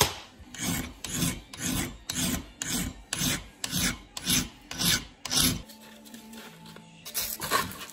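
Hand file rasping back and forth across a steel can-opener blank held in a bench vise, in steady strokes about two a second. The strokes stop a little past halfway, and a couple of lighter strokes come near the end. The face is being filed flat to give a square edge for striking a ferro rod.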